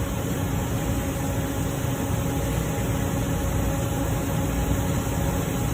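Steady mechanical hum and hiss with a few faint steady tones underneath, even throughout with no clicks or strikes.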